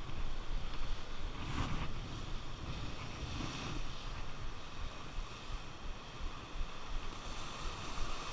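Sea surf washing against the rocks, with wind rumbling on the microphone.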